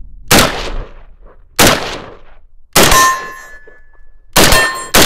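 Robinson Armament M96 Expeditionary Rifle, a 5.56 mm semi-automatic Stoner 63 reproduction, fired five times at a steady pace of about one shot a second. Hit steel targets ring with a clear metallic tone after several of the shots.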